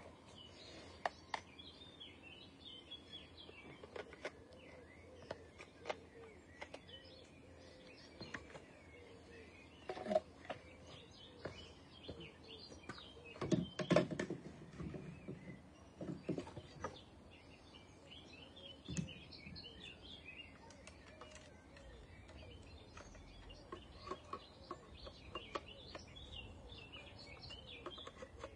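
Small garden birds chirping and twittering, with scattered knocks and bumps, the loudest a short cluster about halfway through.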